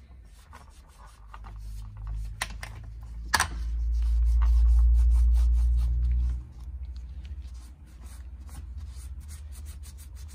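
Shop rag rubbing and scrubbing over the aluminium cylinder face of an ATV engine crankcase, degreasing it before the base gasket goes on: a run of small scratchy rubbing strokes with two sharp knocks a second apart, about two and a half and three and a half seconds in. A deep low rumble swells from about three and a half seconds and cuts off suddenly about six and a half seconds in.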